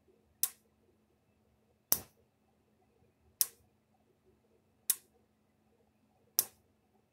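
A Fi-Shock XP-15 electric fence charger's reduced-power output sparking across a screwdriver bridged to the ground terminal. It gives five sharp snaps about a second and a half apart, one for each pulse of the charger. The spark is small.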